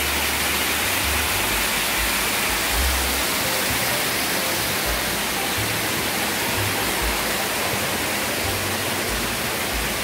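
Small mountain waterfall and stream rushing steadily over rocks, with a few short low thuds underneath.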